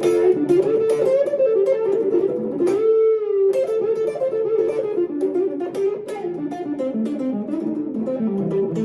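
Electric guitar playing a quick single-note lead line, mostly picked notes in a running phrase with one note held briefly about three seconds in, blending D Mixolydian lines with blues phrasing.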